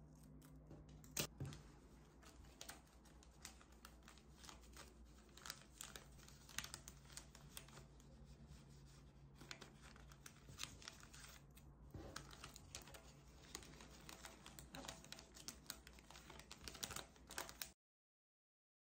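Faint crinkling and crackling of clear plastic packing bags handled by hand, with small scissors snipping masking tape; a sharp snip about a second in, then many short crackles and clicks that stop abruptly near the end.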